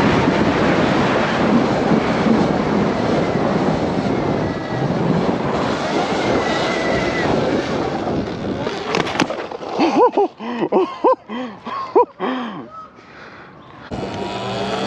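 Steady rush of wind and riding noise on the microphone while the Sur-Ron is ridden. About two-thirds of the way in it breaks off abruptly, giving way to a quieter stretch with a run of short rising-and-falling pitched sounds.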